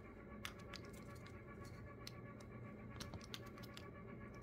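Faint, irregular clicks and scratching of a flat-blade screwdriver prying and working at the plastic housing of a Xiaomi air purifier, over a faint steady hum.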